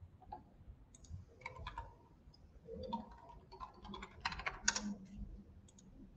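Faint computer keyboard typing: an irregular run of quick key clicks.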